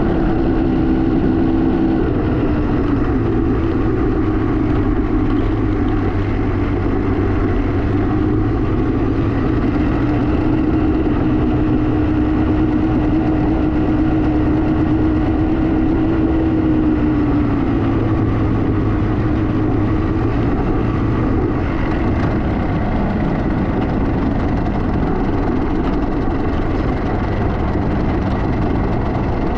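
Kawasaki KMX200's two-stroke single-cylinder engine running steadily while ridden, its pitch shifting slightly a couple of times, over a steady rushing noise.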